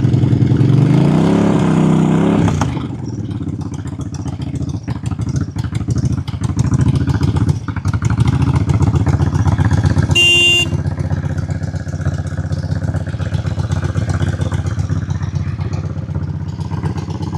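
Suzuki Volusia 800's liquid-cooled V-twin running: revved up over the first couple of seconds, then dropping back to a steady idle. A brief high-pitched tone sounds about ten seconds in.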